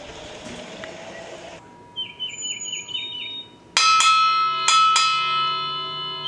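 A streetcar-style gong struck in two quick pairs, ding-ding, ding-ding, each strike ringing on. Before it, a bird chirps a quick run of about seven short notes.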